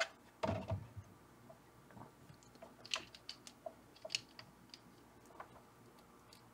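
A handheld digital multimeter is set down with a low knock about half a second in. Faint scattered clicks and taps follow as it and its test probe leads are handled, ready to measure resistors.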